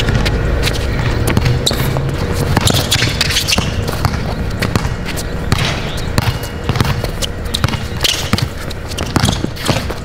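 A basketball dribbled hard against the court surface in quick, irregular bounces during one-on-one play.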